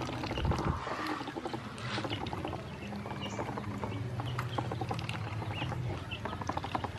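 Ducklings paddling and dabbling in a shallow plastic basin of water: constant small splashes and bill clicks with a few short high peeps, over a steady low hum.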